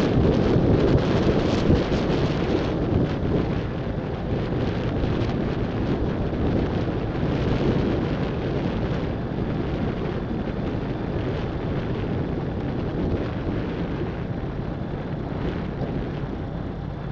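Heavy wind rush buffeting the microphone, with no engine note audible, easing gradually over the stretch.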